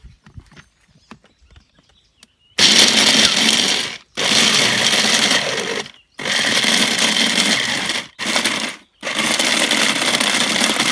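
Electric hand blender with a mini chopper bowl grinding crisp-dried jujube fruit. After a few light handling clicks, it runs in five bursts of one to two seconds with short breaks, starting about two and a half seconds in.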